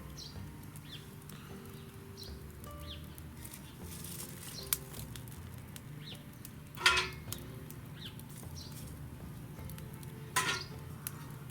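Small birds calling in short falling chirps over a steady low hum, with scattered faint clicks. Two louder, brief noisy sounds come about seven and ten and a half seconds in.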